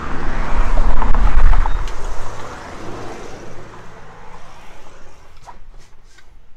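Low rumble of wind and road traffic, loud for about two seconds, then falling away to a faint indoor hush with a few light clicks near the end.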